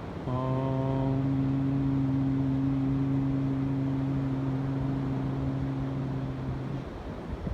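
A low voice chanting a single chakra mantra syllable on one steady note, held for about six and a half seconds. It is brighter at first, then settles into a closed-mouth hum. Steady wind and surf noise lie underneath.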